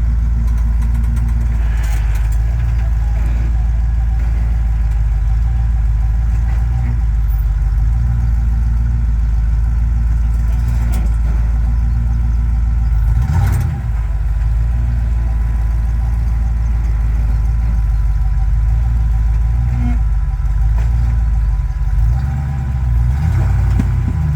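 Off-road vehicle's engine running steadily at low revs, with a brief knock about 13 seconds in.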